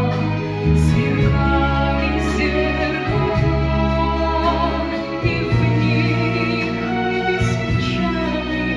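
Song from a stage musical: a female voice singing over accompaniment of long held notes with a deep bass.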